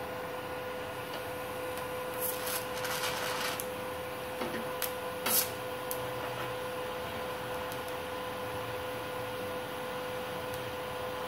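Manual argon (TIG) welding arc from a MultiPro MMA 120 G-KRK inverter welder being struck: irregular crackling and a few sharp snaps from about two to five and a half seconds in, over a steady electrical hum.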